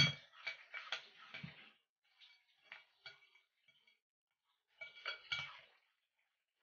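Metal spoon stirring thick flour-and-water batter in a glass bowl, clinking and scraping against the glass in three short spells with pauses between, the first clink the loudest.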